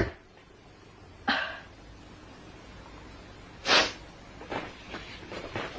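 A person sneezing twice: a sharp sneeze about a second in and a louder one near four seconds, followed by a few faint short sounds.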